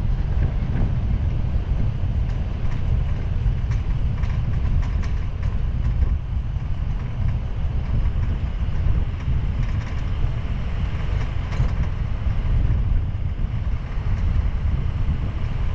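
Sportsmobile camper van driving, heard from a camera on its roof: a steady low rumble of wind buffeting the microphone and road noise, with light ticks and clicks now and then.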